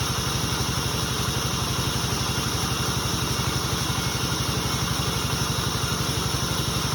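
Sawmill engine running steadily with an even, quick chugging of about ten beats a second.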